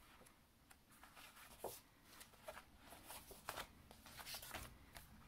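Faint rustling and light taps of folded card-stock card bases being handled and leafed through, a few brief sounds spread out over a quiet background.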